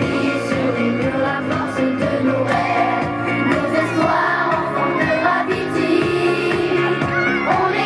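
A children's song playing with a beat, a group of young children singing along to it.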